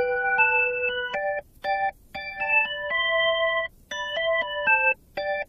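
Background music: an electronic keyboard tune of short, stepping notes and held chords, with a few brief breaks.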